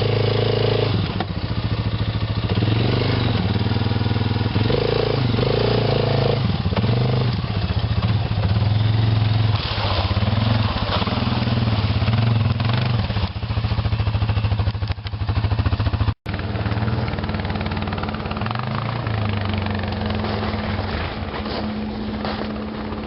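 Quad ATV engine running and revving up and down as it is ridden, its pitch rising and falling repeatedly. The sound cuts out for an instant about 16 seconds in, then the engine runs on more evenly.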